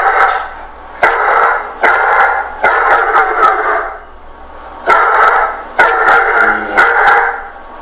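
Dog barking, about seven loud barks in two runs with a pause of about a second in the middle.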